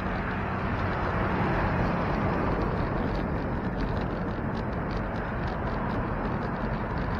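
Steady rushing noise of riding a bicycle, wind and rolling tyres, with faint light ticking throughout.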